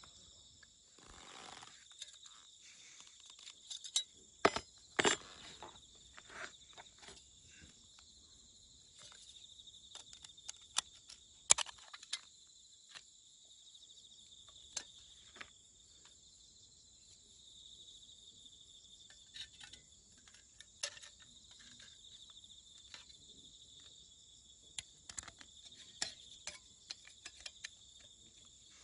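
Steady high-pitched insect chorus, with scattered sharp metallic clicks and clinks as the thin metal plates of a slot-together folding wood stove are handled and fitted together.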